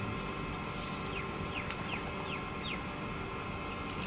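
A bird calling, a run of about five short notes that each fall quickly in pitch, starting about a second in, over a steady outdoor background hiss.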